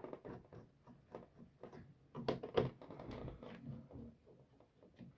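Scattered light clicks and rattles of a comb busbar being worked loose from a row of circuit breakers in a panel, with a few louder knocks about two to three seconds in.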